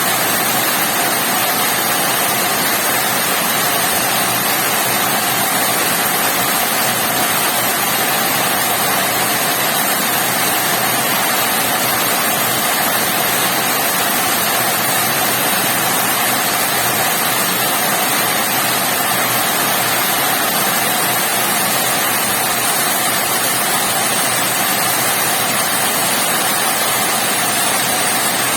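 Rain falling steadily, a loud, even, unbroken hiss.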